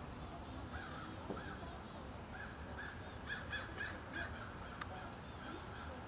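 A bird calling in a series of about eight short notes that rise and fall, spaced unevenly and closer together toward the middle, stopping a little past the middle. A faint steady high-pitched tone runs underneath.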